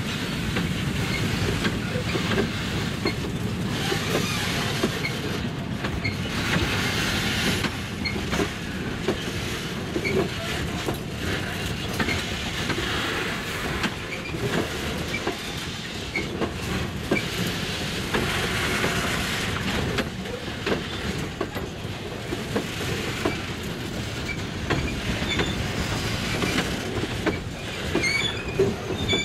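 Long freight train of boxcars and covered hopper cars rolling past close by: a steady rumble of wheels on rail, with frequent clicks as wheels cross rail joints and brief high wheel squeals here and there.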